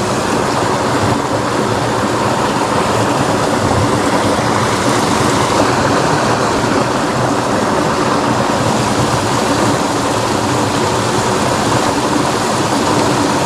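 Water rushing steadily along a small drainage ditch, a continuous even noise.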